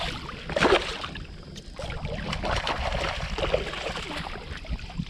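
Hooked speckled trout thrashing and splashing at the water's surface beside a kayak as it is led to the landing net, in irregular bursts.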